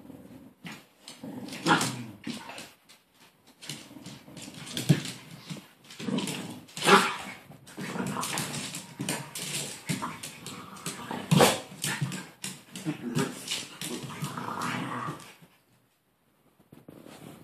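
A Bichon Frisé and a larger white dog play-fighting, growling and whimpering in rough bursts with a few louder sharp outbursts; it falls quiet near the end.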